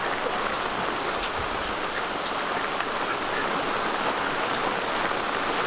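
Steady rush of running water, an even hiss with a few faint splashes.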